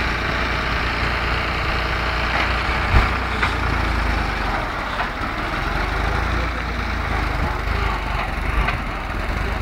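New Holland 3630 tractor's diesel engine running steadily under load as its front-end loader bucket pushes into a sand pile, with one sharp knock about three seconds in and a few fainter knocks later.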